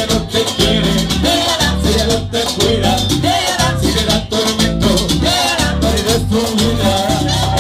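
Live Latin dance band playing salsa, with bass, congas and a shaker keeping a steady beat under keyboard and singers' voices.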